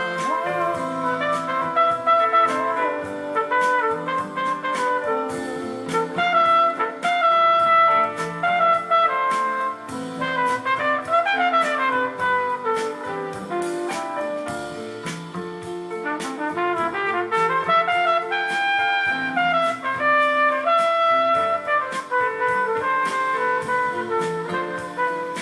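Instrumental break of a song played back through a tube power amplifier: a lead melody with sliding notes over bass and steady drum hits.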